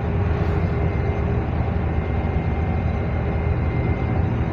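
A shrimp trawler's diesel engine running steadily underway, a continuous low drone. A faint high steady whine sits over it and stops near the end.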